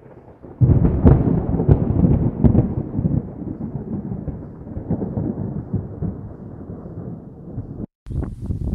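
A deep rumble with a few sharp cracks. It starts suddenly about half a second in, slowly dies away, and cuts off abruptly near the end.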